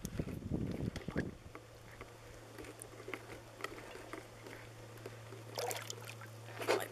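Lake water sloshing and lapping against a rowboat's side as a hand holds a caught fish in the water for release, with a louder splash near the end as the fish swims off.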